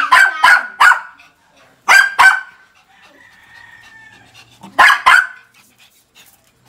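A small dog barking in short, sharp yaps: a quick run of three at the start, a pair about two seconds in, and another pair about five seconds in, with a faint thin whine between them.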